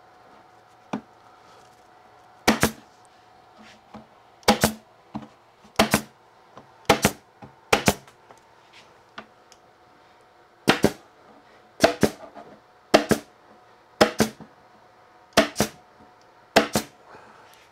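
Pin nailer shooting pins into wood: eleven sharp shots, each a quick double snap, mostly about a second apart with a pause of nearly three seconds midway.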